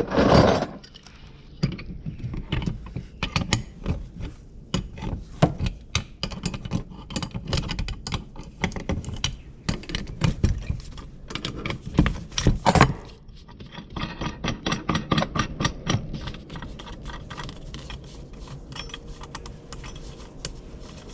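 Socket ratchet wrench clicking in quick runs as bolts are backed off, with metal clinks of tools and parts. A louder metal knock comes right at the start and another about twelve seconds in.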